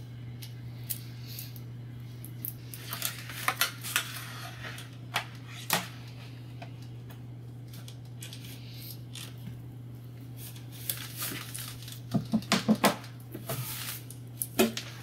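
Handling noises as a plastic fuel tube and its fitting are taped and worked against a plastic jerry can: scattered light clicks and rustles, with a quick run of clicks about twelve seconds in. A steady low hum lies underneath.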